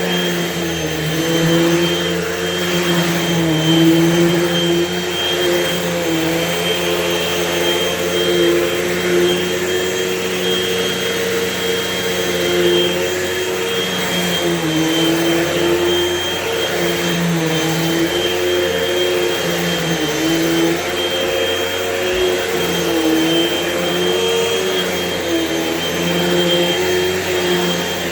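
Hoover Elite Rewind bagless upright vacuum cleaner running steadily, its motor whine wavering slightly in pitch now and then.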